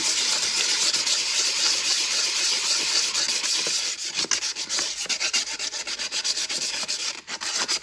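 100-grit sandpaper rubbed in quick back-and-forth strokes over the coated finish of a stainless steel tumbler, a continuous scratchy rasp that scuffs the glossy coat dull. The strokes come faster and more distinct in the second half.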